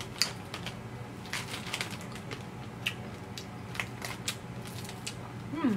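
Hard sour candy ball being crunched and cracked between the teeth: scattered, irregular sharp crunches and clicks over a faint steady hum.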